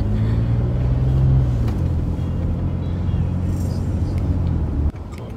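Engine and road noise inside a moving car's cabin, with background music over it. The sound drops away suddenly near the end.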